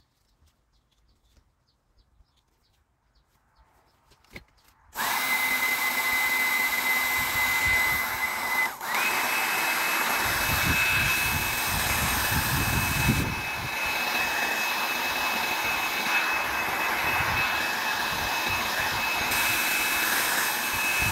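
A handheld electric power tool's motor switching on and running steadily with a high whine. It stops for a moment a few seconds after starting, then runs on at a slightly higher pitch.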